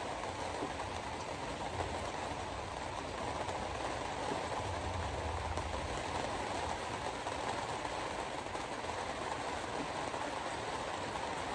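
Steady noise of a car driving in heavy rain: rain on the car and tyres hissing on a wet road, with a low road rumble.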